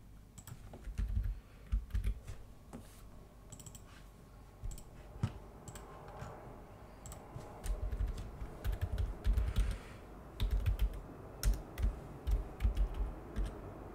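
Typing on a computer keyboard in irregular bursts of key clicks, busier from about eight seconds in.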